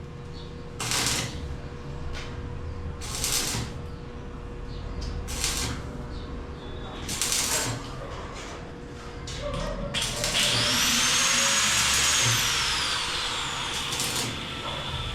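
Angle grinder working on metal ceiling framing: a string of short cuts about every two seconds, then one longer cut of about three seconds about two-thirds of the way in, its whine falling in pitch.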